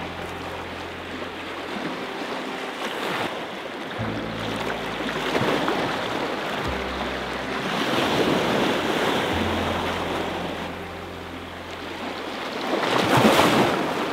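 Sea waves washing in over a rocky shore, surging several times with the loudest surge near the end.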